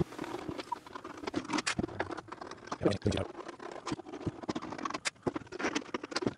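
Thin sheet-metal round duct sections being handled and fitted together by hand: irregular light taps, clicks and scrapes of the metal.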